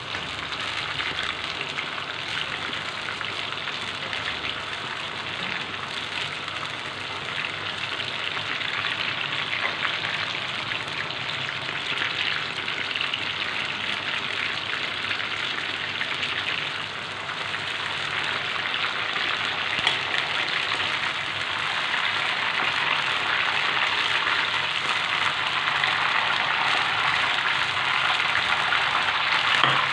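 Flour-coated chicken pieces deep-frying in hot oil in a wok on high heat: a steady sizzle that gets a little louder about halfway through.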